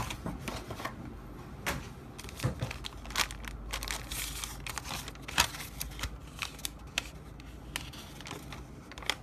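Clear plastic bag and a sheet of paper being handled: irregular crinkling and rustling with many sharp crackles.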